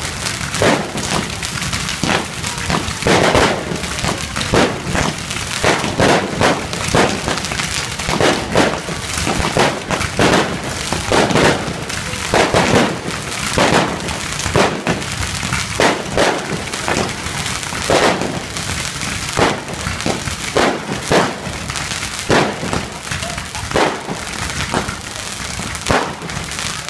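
Aerial fireworks display: a continuous, dense barrage of bangs and crackle, with loud reports coming several times a second.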